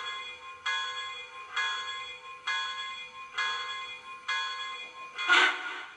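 Locomotive bell from a model Union Pacific Big Boy's onboard sound system ringing steadily, about one strike every second. A short, louder burst of noise cuts in near the end.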